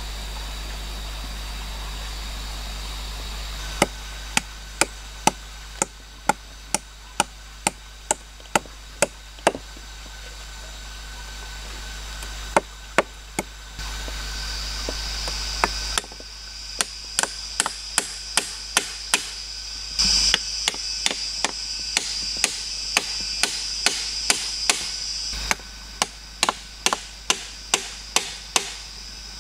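Bamboo pegs being hammered into a log: sharp wooden knocks, about two a second, coming in runs with short pauses.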